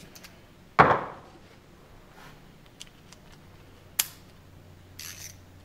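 Metal tool clinks from a socket and crow's foot being swapped on a torque wrench's square drive: one loud clank about a second in, a sharp click about four seconds in, and a few light clicks and a brief rustle near the end.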